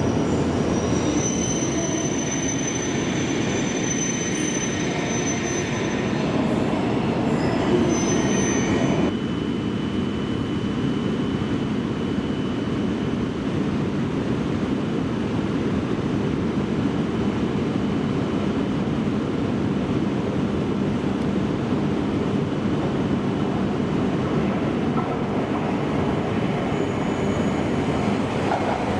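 A Shinkansen train running on the rails, with high-pitched wheel squeal over the first several seconds. The squeal stops abruptly about nine seconds in, leaving a steady rumble of train noise.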